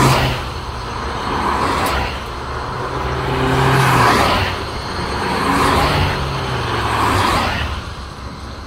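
Cars passing close by in quick succession, each one's tyre and engine noise rising and fading about every two seconds over a steady low hum.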